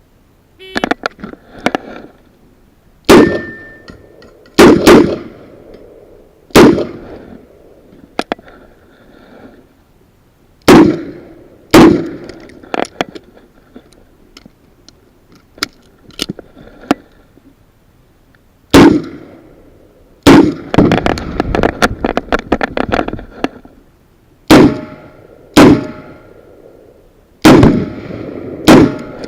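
Smith & Wesson Model 66-8 revolver fired in a stage of timed shots: about a dozen sharp, loud reports, mostly in pairs a second or so apart, with pauses between the strings. Quieter clicks and metallic clatter come in the gaps, with the longest run of clatter about two thirds of the way through.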